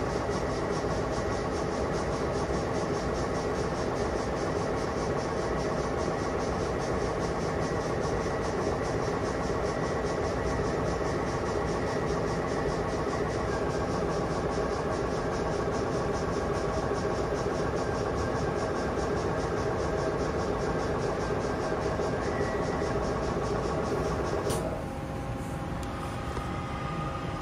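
2005 Haas SL10 CNC lathe running a stored program: the machine's spindle and drives run steadily with a whine of several held tones. About 13 seconds in, one tone steps down slightly. About 24 seconds in, the sound drops a little and the tones change, as the program moves to a different speed.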